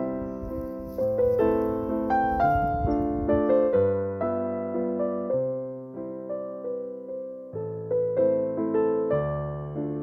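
Background music: a gentle piano piece, notes struck a few times a second and left to ring and fade.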